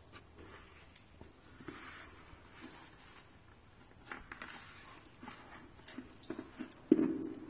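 Handling noise from an anti-riot helmet: scattered light clicks and rustles as its clear plastic face shield is swung down and flexed, with a louder knock near the end.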